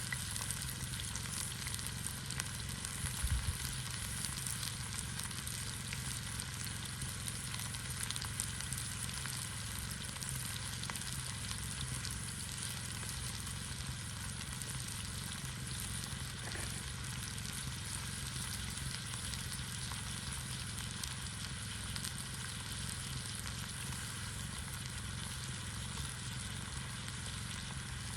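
Fajitas sizzling in a pan over a campfire: a steady crackling hiss of frying, with a low rumble underneath and a brief low thump about three seconds in.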